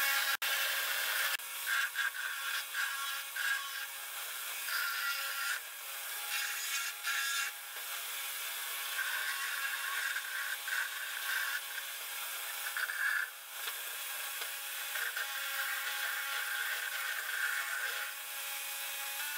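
An angle grinder runs at medium speed, driving a flexible shaft whose rotary burr grinds into the wood of a box wall. There is a steady motor whine, and a rasping cut swells and fades each time the burr bites into the wood.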